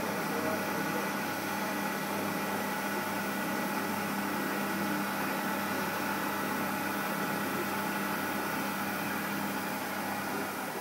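CNC milling machine spindle running and an end mill cutting a metal block: a steady hum with a few held whining tones over a hiss.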